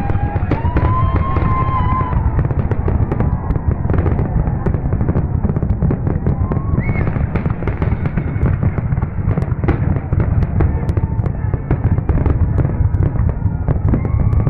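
Aerial fireworks going off in quick succession: many sharp bangs and crackles over a continuous low rumble.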